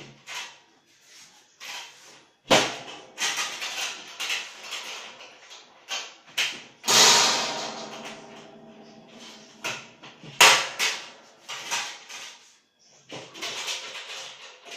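Metal drum sections of a Barbecook XL smoker clanking and scraping as they are handled, fitted together and latched. There are a few sharp knocks and a long metallic scrape with a ringing tone about seven seconds in.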